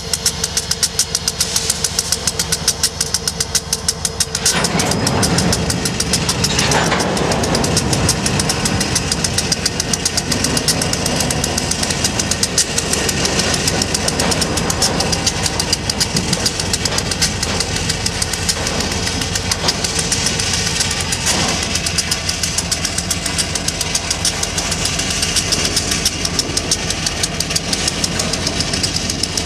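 CSX EMD SD70M diesel locomotives running at low power, their two-stroke 16-cylinder EMD 710 engines giving a steady, rapid rhythmic beat. About four and a half seconds in, a louder rumble of the freight train's wheels and hopper cars rolling joins in and holds.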